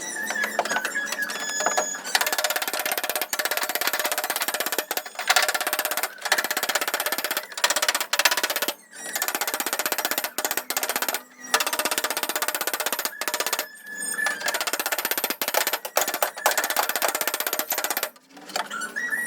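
A power tool running in bursts with short pauses, each run a steady, hissing, rattling noise.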